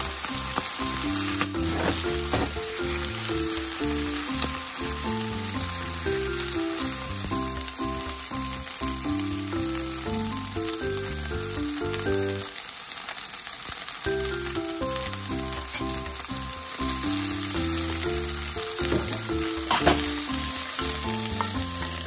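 Chicken livers sizzling in oil in a nonstick frying pan, turned now and then with wooden chopsticks, over background music. A short knock comes about two seconds before the end.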